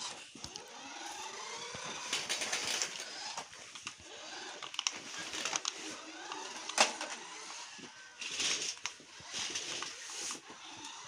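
Small toy RC car's electric motor and gears whirring, the pitch rising and falling as it speeds up and slows. Scattered clicks and knocks run through it.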